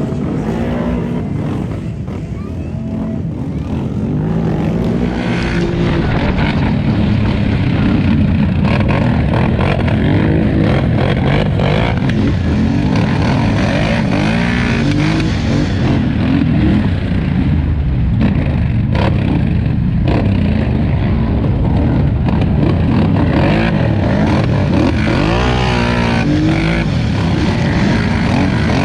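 2018 Polaris Scrambler XP 1000's twin-cylinder engine under race throttle, revving up and falling off again and again as the rider works the throttle, with loud wind and track noise.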